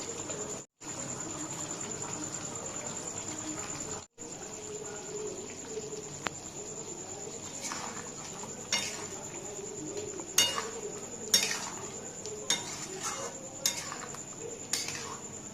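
A metal spoon scraping and knocking against a cooking pot while the curry is stirred, a string of sharp scrapes in the second half. Under it runs a steady high-pitched cricket chirr.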